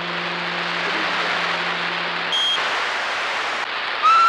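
CB radio receiver hissing with static on an open skip band, under a steady low hum from a distant station's carrier. The hum drops out about halfway with a short high beep, and another short beep comes near the end: roger beeps marking the end of transmissions.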